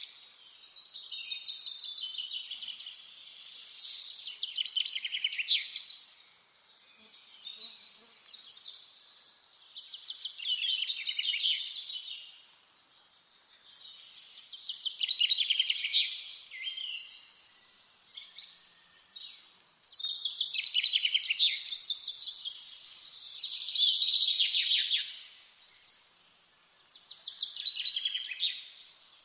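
Songbird singing: bright, high trilled phrases of rapid repeated notes, each about two to three seconds long, repeated about seven times with short pauses between.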